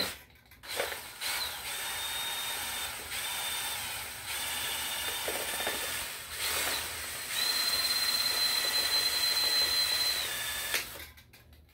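Cordless drill spinning a spray paint can mounted on a bolt in its chuck, the motor whining in several runs of one to three seconds with short breaks, while the can's mixing ball rattles around inside to mix the paint. The drill stops about a second before the end.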